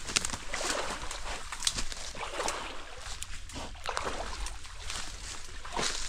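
A bear sloshing about in a shallow, muddy stream: irregular water splashes and swirls, with a few short sharp crackles.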